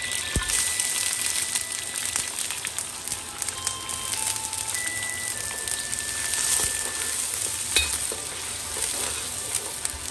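Ginger strips sizzling as they fry in hot oil in a carbon-steel wok, stirred with a metal wok ladle, with a sharp clank of the ladle against the wok about eight seconds in.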